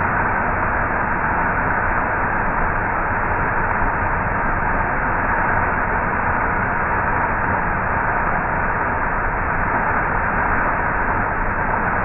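Small waterfall pouring over rock into a pool: a steady, unbroken rush of falling water.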